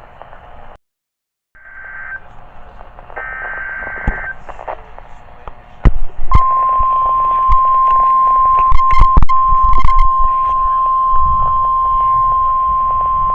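NOAA Weather Radio emergency alert starting: a few short bursts of digital data tones (the SAME header), then from about six seconds in the steady single-pitch warning alarm tone, held without a break. Several sharp clicks sound near the start of the tone.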